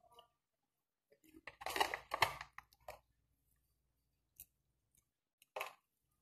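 Faint eating and food-handling noises: a burst of crackling about a second and a half in, then a single sharp click near the end.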